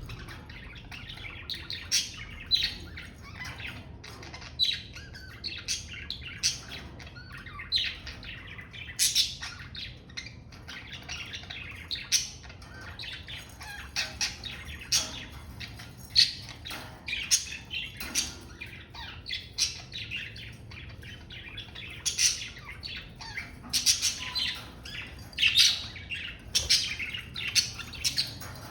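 Budgerigars chirping and chattering, a busy stream of short high calls broken every second or two by louder, sharp squawks, which come thicker near the end.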